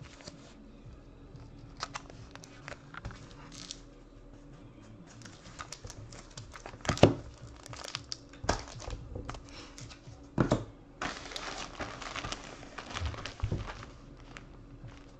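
Yellow padded mailer envelope being handled and torn open: scattered sharp paper rustles and crackles, with a denser stretch of crinkling about two-thirds of the way through.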